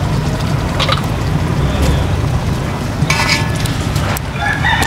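Cooked chicken pieces being spooned out of a large aluminium pot into a steel bowl, with a couple of brief metal scrapes of the spoon. Under them a steady low rumble.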